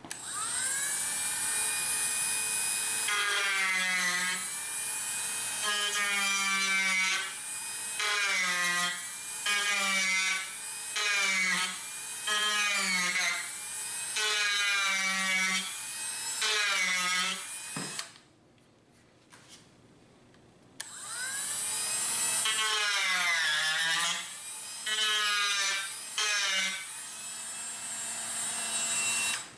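Dremel rotary tool grinding wood to contour the nose of a rifle stock. Its whine spins up, then sags in pitch again and again as the bit bites into the wood. It stops about two-thirds of the way through, starts again a few seconds later, and cuts off just before the end.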